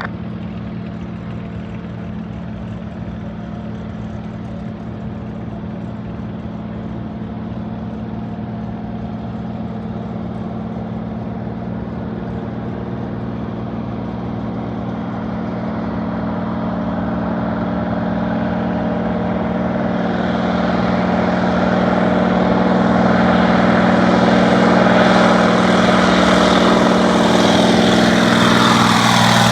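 Floatplane's piston engine and propeller running, growing steadily louder as it comes closer, with its pitch falling near the end as it passes.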